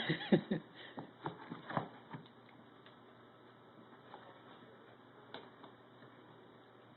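A quick run of light clicks and taps over the first two seconds, then faint room noise with a single tick now and then.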